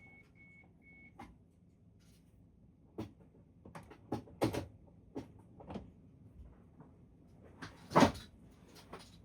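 Three short high beeps in the first second, then a string of clicks and knocks, the loudest a single thump about eight seconds in; no engine is running.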